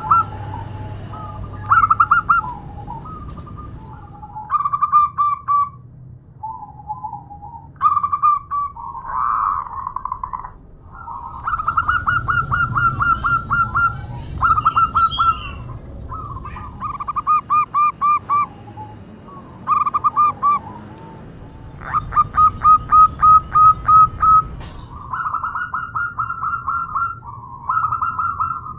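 Female zebra dove (perkutut) calling for a male: short runs of rapid, stuttering coos, each a quick train of pulses, repeated again and again with brief gaps. The loudest and longest run comes a little past the middle.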